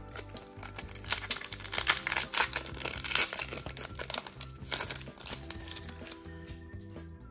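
Foil wrapper of a Pokémon trading-card booster pack crinkling as it is torn open, a dense crackle through the first few seconds with a shorter burst about five seconds in.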